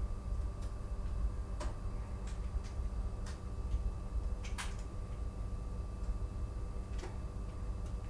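Scattered light clicks and ticks at irregular intervals, the loudest a little past the middle, over a steady low hum and a faint steady tone.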